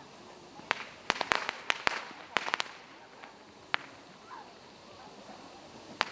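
Fireworks going off in sharp cracks: a rapid string of bangs in the first few seconds, then single cracks near the middle and at the end.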